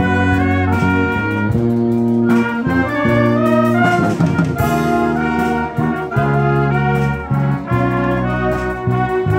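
Wind band of clarinets and brass playing a sustained, chordal ballad arrangement, with a crash about halfway through.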